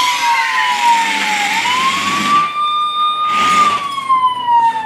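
Electronic toy police siren wailing: one tone slowly sliding down and back up over a few seconds. A hissing rustle sounds with it in the first half and once more briefly near the end.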